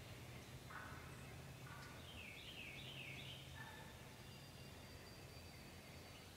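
Faint woodland birdsong: a songbird's run of quick, falling high notes repeated about five times around the middle, with a few short, faint lower calls, over a low steady hum.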